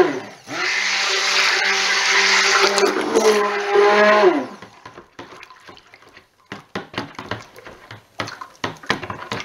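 Handheld stick blender running in a plastic bucket of soap oils, mixing in coconut milk and kaolin clay to break up clumps before the lye goes in. It cuts out briefly just after the start, then runs with a steady whine and winds down about four seconds in, followed by light knocks and clicks.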